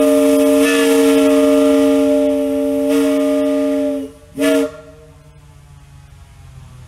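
Antique steam locomotive whistle blown on compressed air instead of steam: one long blast of several steady tones sounding together as a chord for about four seconds, cut off sharply, then a short toot half a second later.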